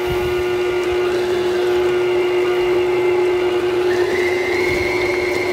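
KitchenAid stand mixer running on low speed, a steady motor whine, as its beater starts working dry ingredients into a thick cookie dough. A higher steady whine joins about four seconds in.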